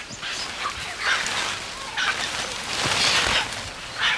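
Crested black macaques giving harsh, noisy cries in a string of short bursts, the loudest about three seconds in. These are alarm and distress calls as a young macaque struggles in a snare.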